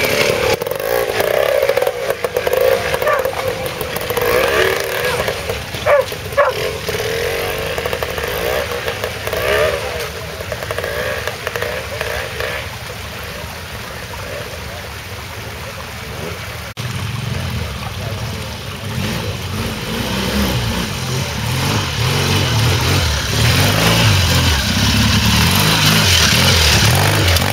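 Old single-cylinder trials motorcycle engines, a BSA among them, revving up and down as the bikes pick their way over rocks. In the last third a second bike's engine comes in close, deeper and louder.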